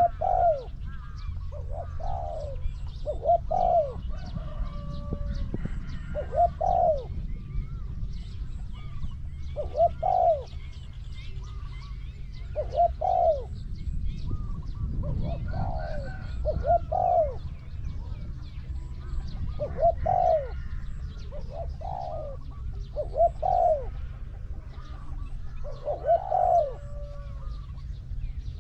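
Spotted doves cooing, repeating short phrases every two to three seconds. Small birds chirp faintly and a steady low rumble sits underneath.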